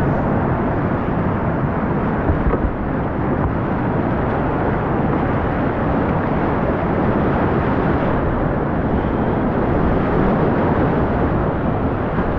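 Whitewater rushing loudly and steadily, an unbroken dense noise with no breaks.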